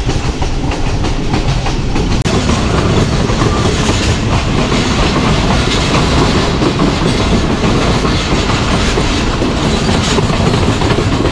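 Pakistan Railways Kohat Express train running at speed: steady rumble and rattle of wheels on the rails, a little louder after about two seconds.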